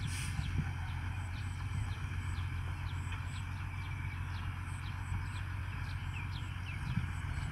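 Loaded dump truck's diesel engine running with a steady low drone as the truck drives slowly, with short high chirps scattered over it.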